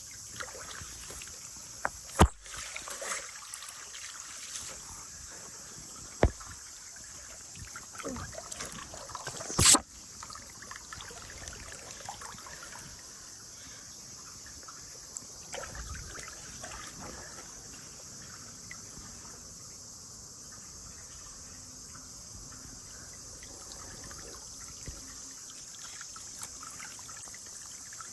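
Water balloons bursting and splashing, with water trickling and dribbling in between. There are a few sharp pops, about 2, 6 and 10 seconds in, the one near 10 seconds the loudest. A steady high hiss runs underneath.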